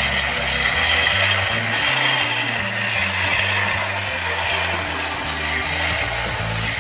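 Kanom krok batter sizzling and crackling steadily as it is poured into the cups of a hot kanom krok pan, with background music underneath.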